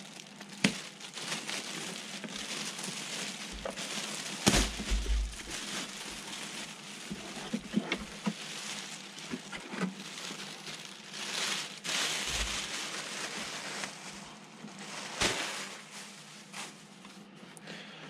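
Clear plastic bag crinkling and rustling as it is peeled off a balsa RC airplane fuselage, with scattered sharp clicks and knocks, the loudest about four and a half seconds in and another near fifteen seconds.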